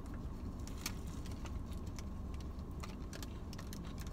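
Close-up chewing of a crunchy taco: a string of small irregular clicks and crackles from the mouth, with the paper wrapper crinkling near the end. A steady low rumble runs underneath.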